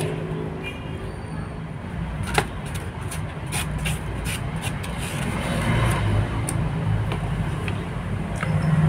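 Steady low background rumble like road traffic, under scattered light clicks and scrapes of a plastic spoon in a styrofoam food box and of eating. The sharpest clicks come about two and a half seconds in and again a little later.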